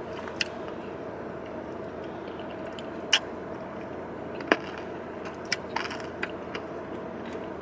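Steady hum inside a parked car, with a handful of short sharp clicks and crunches from someone eating a granola smoothie bowl.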